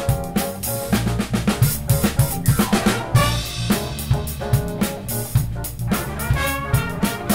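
Big band playing a funk tune live: the drum kit drives a busy groove of bass drum, snare and rimshots over an electric bass line, with the horn section coming in with chords about three seconds in and again near the end.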